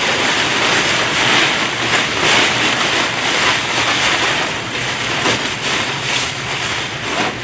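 Plastic stretch wrap from pallets rustling and crinkling steadily as it is stuffed into a small manual plastic baler.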